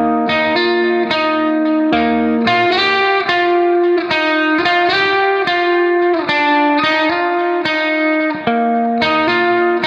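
Background music: a plucked guitar playing a steady melody, a new note about every half second.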